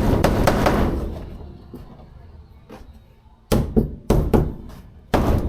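Hammer driving a nail: a run of quick strikes, a pause of about two seconds, then another handful of strikes.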